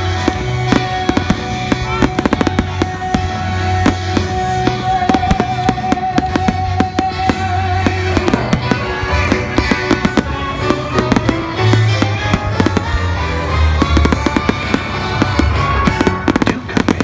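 Fireworks display: a continuous run of bangs and crackling from shells and fountains over music, with a long held note in the music for the first half.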